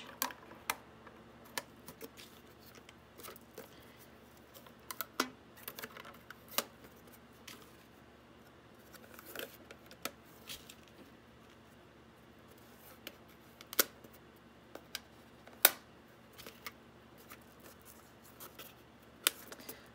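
Rubber bands being stretched by hand and snapped around a square of cardboard: irregular sharp snaps and taps, the loudest about three-quarters of the way through.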